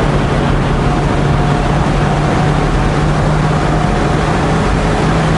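Mercedes-AMG GT R Roadster's twin-turbo V8 pulling at a steady high speed, mixed with heavy wind rush over the open cockpit and microphone, roof down at around 260 km/h.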